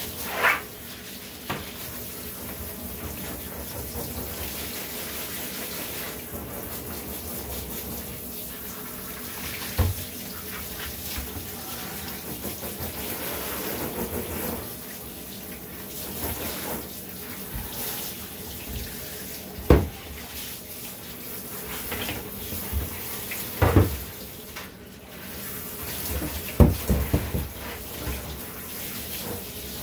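Handheld shower sprayer running steadily onto a dog's wet coat in a bathtub, rinsing out shampoo, with several sharp knocks now and then.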